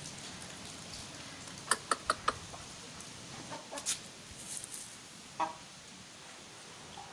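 Parrot-beak aseel chickens clucking: a quick run of four short, sharp clucks about two seconds in, then a few more scattered clucks.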